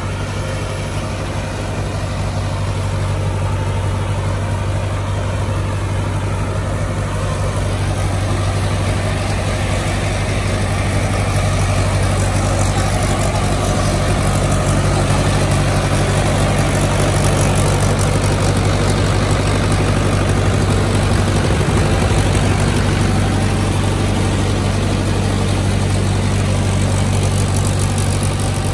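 Mahindra 475 DI tractor's diesel engine running steadily, driving a rice thresher whose drum adds a dense, steady whir as paddy straw is fed through it.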